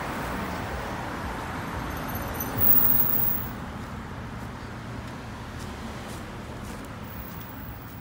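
Road traffic going by: a steady wash of tyre and engine noise that swells as a car passes about three seconds in, then eases off.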